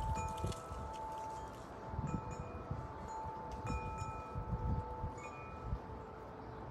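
Wind chime ringing: several metal tones start at intervals and ring on, one lower tone holding for several seconds, over soft low rumbling.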